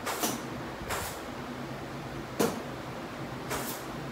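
Small metal engine parts clinking against each other as they are handled, four separate clinks with the third the loudest, over a steady low hum.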